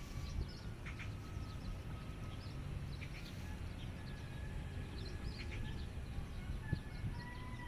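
Small birds chirping, many short calls over a steady low rumble of outdoor background noise.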